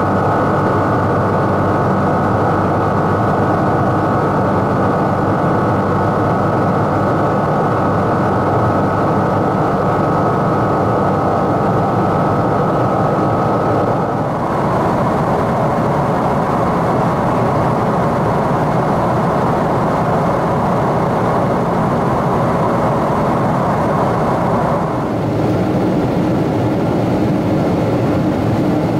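Cabin noise inside a Boeing 777-200 in flight: a steady roar of Rolls-Royce Trent 892 jet engines and rushing air, with a faint high whine. The sound changes abruptly about 14 seconds in and again about 25 seconds in.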